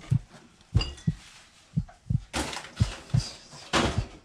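Heartbeat sound effect beating steadily in lub-dub pairs about once a second, with packets rustling twice as they are handled and a faint clink about a second in.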